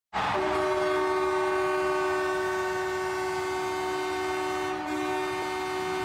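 Ice hockey arena goal horn sounding one long, steady blast, a chord of several held tones, signalling a home-team goal.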